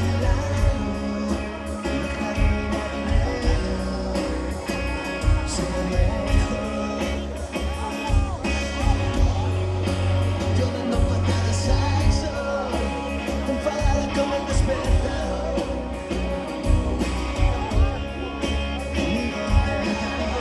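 Rock band playing a song with a singer's voice over it.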